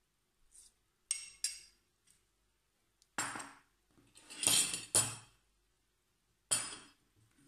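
Tableware being handled on a tabletop: two light clinks of a metal spoon against dishes about a second in, then four knocks as dishes and a plate are set down and moved on the table.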